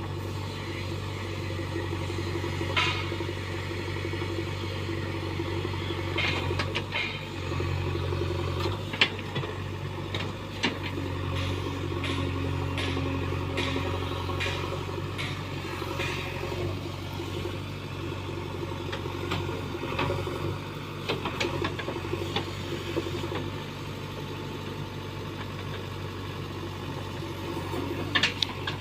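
JCB backhoe loader's diesel engine running steadily, revving up briefly about a quarter of the way in, with scattered metallic clanks and knocks from the working machine.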